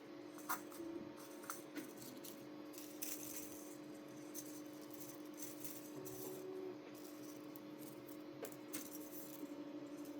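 Faint scattered clicks and taps of 3D-printer filament and small plastic parts being handled, over a steady low hum.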